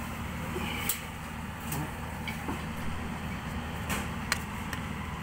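Ice maker's refrigeration unit running with a steady low hum, with a few sharp clicks over it. The unit is running hot, which the owner puts down to its system straining.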